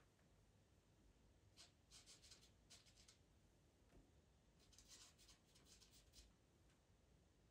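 Faint scratching of a pastel pencil drawing short strokes on Pastelmat paper, in several runs of quick strokes with pauses between them.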